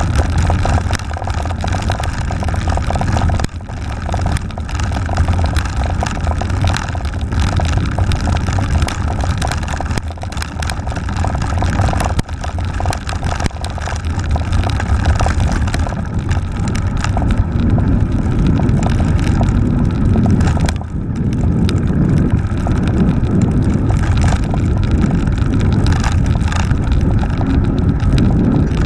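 Continuous rattle and rumble of a mountain bike with knobbly tyres riding over cobblestones, picked up through a camera mounted on the bike, with rapid uneven jolts from the stones and some wind on the microphone.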